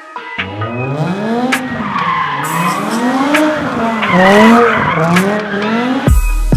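Car engine revving up and down over and over while the tyres squeal and skid through a drift. Music cuts back in near the end.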